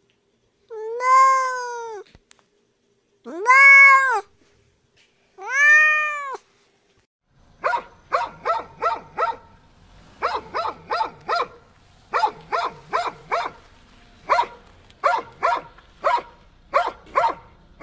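A cat meowing three times, long calls that rise and fall in pitch. About halfway through, a dog starts barking in quick clusters of three to five short barks.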